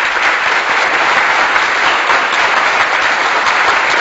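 Canned applause sound effect: steady, dense clapping of a large audience.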